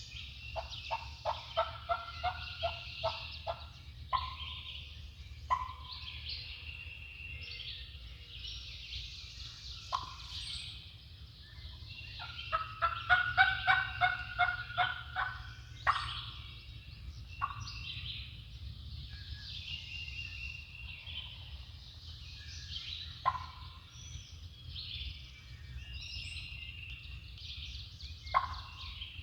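Wild turkeys gobbling: two long rattling runs, one right at the start and one about halfway through, with several single shorter calls between. A steady dawn chorus of songbirds runs underneath.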